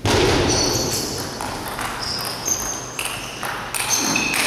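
Table tennis rally: the ball clicking off bats and table every second or so, with short high squeaks of shoes on the hall floor.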